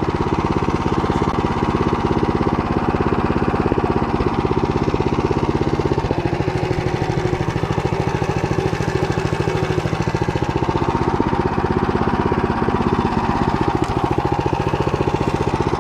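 Walk-behind tractor's single engine running steadily under load, with an even, fast pulsing beat, as its Motor Sich rotary tiller mills high barley stubble.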